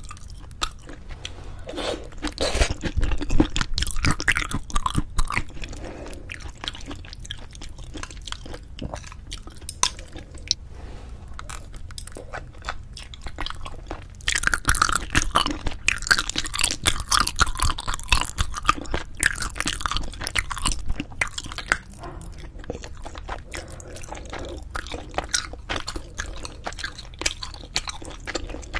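Close-miked eating of braised spicy chicken with cheese: wet chewing and biting with sticky, crackly mouth sounds, busiest and loudest in the middle stretch.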